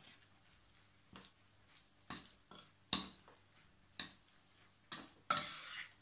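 Metal fork knocking and scraping against a glass bowl while working a ground-beef and breadcrumb mixture. The strokes come singly, about one a second, with a longer, louder scrape near the end.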